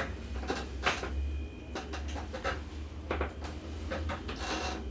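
Scattered soft clicks, knocks and rustles as a patient is shifted and positioned on a chiropractic table, over a steady low hum.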